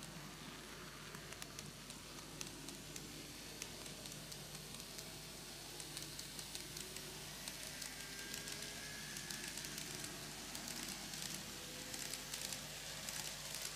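N-gauge model train, a KATO JR Shikoku N2000 series five-car set, running on curved track: a faint steady hiss dotted with rapid small clicks of the wheels on the rails, which come thicker near the end. A faint motor whine slowly rises in pitch.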